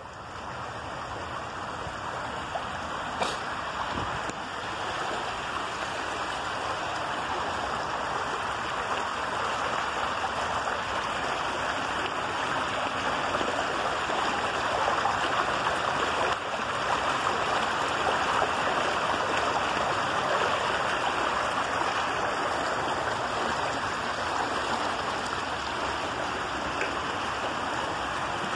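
Rainwater runoff rushing down a shallow concrete channel, splashing over a brick lying in the flow. A steady rushing that grows louder over the first dozen seconds, then holds.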